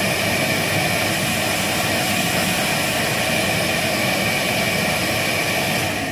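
Vacuum cleaner running steadily with a high whine, its hose nozzle sucking cement dust out of drilled holes and a crack in a concrete foundation wall. It is switched off near the end and winds down.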